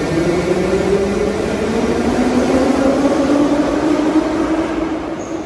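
81-718/719 metro train with thyristor-pulse traction control: the controller's characteristic whine, sliding down and then up in pitch, over the running noise of the train on the track.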